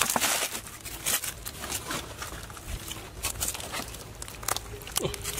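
Irregular rustling, scraping and light crackling of bare hands digging through wet mud among dry twigs and dead leaves.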